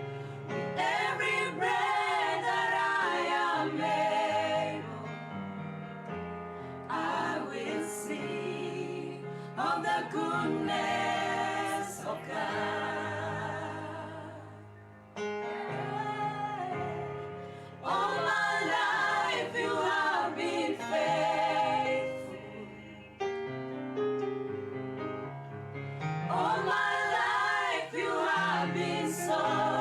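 Worship song sung by several voices over sustained instrumental accompaniment, in phrases of a few seconds with short breaths between them.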